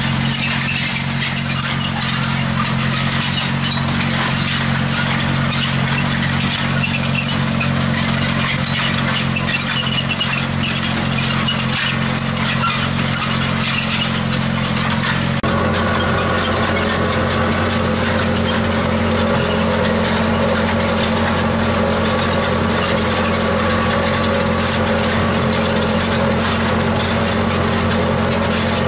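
Tractor engine running steadily as it pulls a mounted seed drill through the soil during sowing. The drone's make-up changes abruptly about halfway through.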